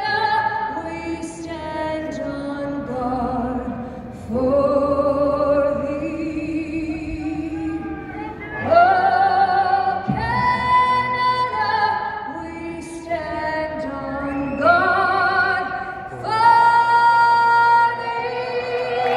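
A woman singing in long, held notes with vibrato, the phrases broken by short pauses.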